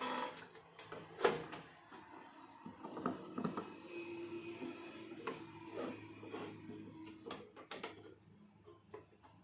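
Scattered clicks and knocks of small tools and parts being handled, over a faint low hum.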